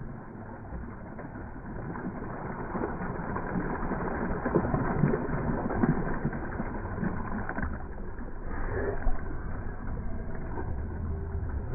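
Sea water splashing and sloshing as people standing in it flip their wet hair back and move their arms, an irregular rushing spatter.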